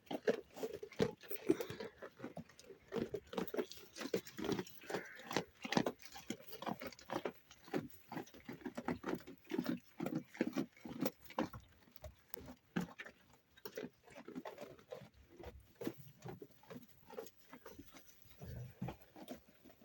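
Sheep eating wheat grain: a fast, irregular run of short crunching sounds.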